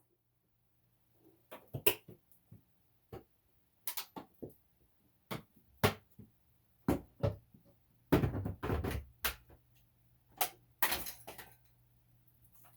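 Scattered, irregular knocks and clicks of hard objects being handled, with a louder cluster of knocks about eight seconds in.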